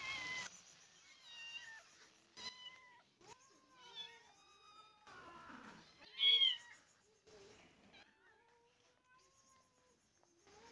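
Hungry cats and kittens meowing over and over, a string of short, bending calls, the loudest about six seconds in.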